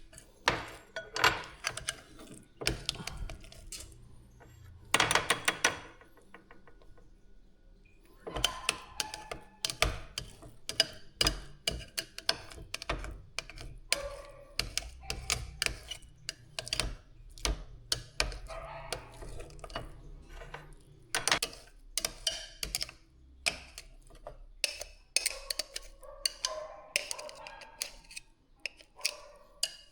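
A run of irregular sharp clicks, taps and knocks, like hard objects being handled and set down, with a brief pause about seven seconds in.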